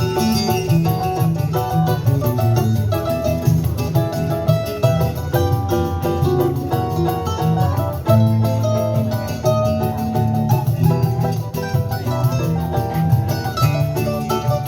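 Choro played on plucked string instruments: a guitar's steady bass line under a quick, bright plucked melody.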